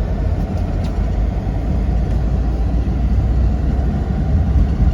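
Steady low rumble of a tour vehicle's engine and tyres while driving, heard from inside the cabin.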